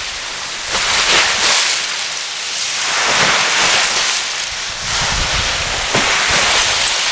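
Small waves of ice slush washing onto a frozen lakeshore: a hissing swash of water and ice crystals that swells and fades about every two seconds, with a couple of sharp ticks near the end.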